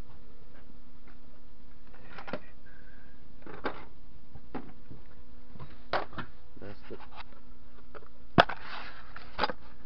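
Steel lathe cutters and chuck parts being handled and rummaged through in a tool box: scattered metal clinks and knocks, the sharpest a little past eight seconds in, over a steady hum.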